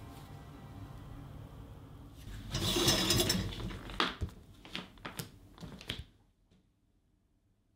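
Shower curtain pulled open, its rings scraping along the rail for about a second, over a low steady rumble. A few sharp clicks and knocks follow, then the sound drops almost to silence.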